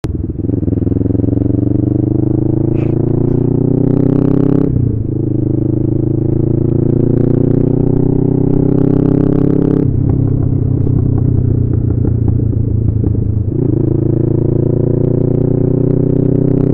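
Motorcycle engine heard from the rider's helmet camera, pulling up through the gears: its note rises, drops at an upshift about four and a half seconds in, rises again and drops at another shift about ten seconds in, then dips and climbs once more near the end.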